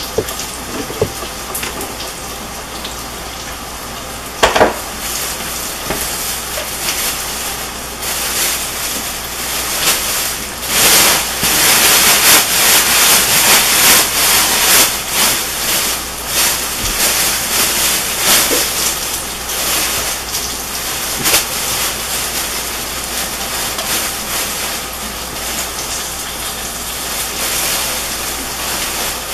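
Hot oil sizzling in a countertop electric deep fryer, a steady hiss that grows louder from about eight seconds in and eases again after about twenty seconds. A single sharp knock comes about four seconds in.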